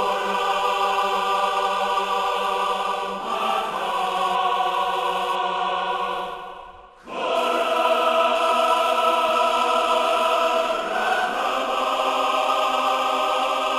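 Music of sustained, choir-like chords, each held for several seconds before shifting to the next, with a short dip and swell back in about halfway through.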